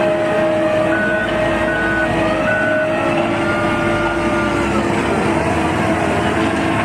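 Diesel engine and hydraulics of a Liebherr LB 44-510 rotary drilling rig running steadily, the pitch wavering slowly under load. Three short high tones sound about one to three seconds in.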